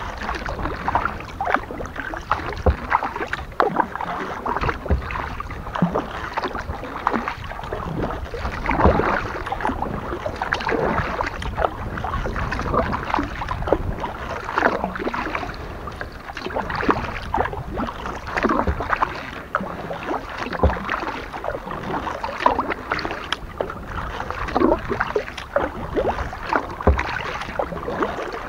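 Kayak paddling: the paddle blades dipping and splashing in the water stroke after stroke, in an irregular run of small splashes and drips.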